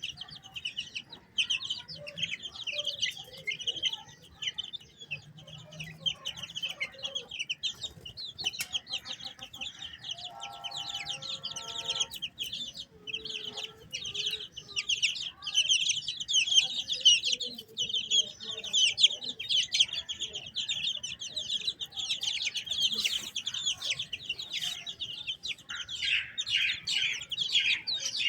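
A brood of chicks peeping constantly in fast, high chirps, with a hen clucking low at times. A steady held tone lasts about two seconds, around ten seconds in.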